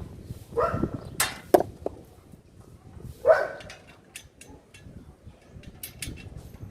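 A dog barks twice, once about half a second in and again about three seconds in, among a run of sharp clicks and knocks.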